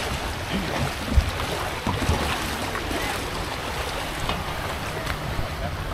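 Shallow sea water sloshing and splashing around wading legs and a wooden boat's hull as the boat is pushed off, with wind rumbling on the microphone.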